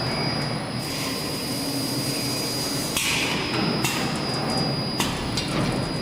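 Semi-automatic binding-tape cutting machine running with a steady mechanical hum and a constant high whine. Its cutter strikes with sharp clacks about three seconds in and again about five seconds in.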